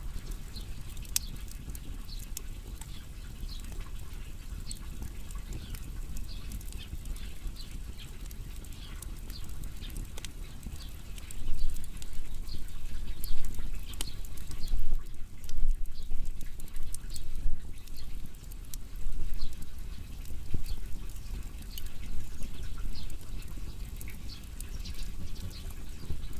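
Wood fire burning: many small sharp crackles and pops over a steady low rumble, the rumble swelling into uneven louder surges from about halfway through.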